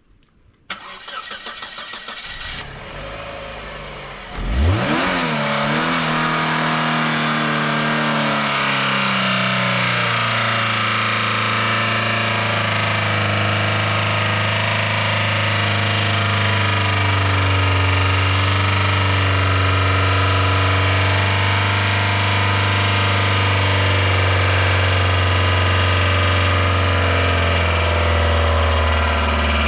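Chevy Aveo's four-cylinder engine cranking, catching about four and a half seconds in with a quick flare of revs, then running steadily with water in its crankcase instead of engine oil.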